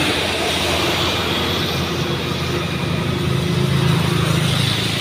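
Heavy six-wheel box truck's diesel engine running as the truck rolls slowly past, a steady low drone with road noise. The drone swells about three to four seconds in as a motorbike passes close by.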